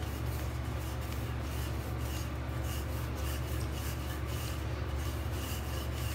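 Wooden rolling pin rolled back and forth over soft, oiled dough on a stone countertop: a soft, repeated rubbing, over a steady low hum.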